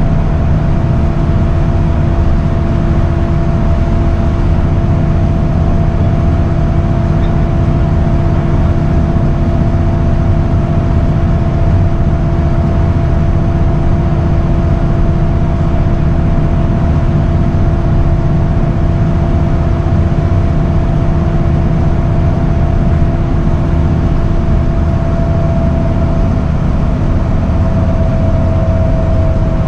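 Scania L94UB bus's rear-mounted five-cylinder diesel and drivetrain running at a steady cruise, heard from inside the saloon: a low drone with road noise and a steady whine over it. Near the end the whine changes pitch.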